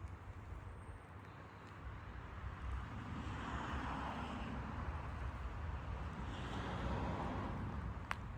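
Vehicle noise with a steady low rumble, swelling twice, and a sharp click near the end.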